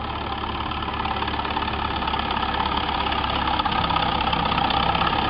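Vintage farm tractor engine running hard under load as it pulls a sled down the track, growing steadily louder.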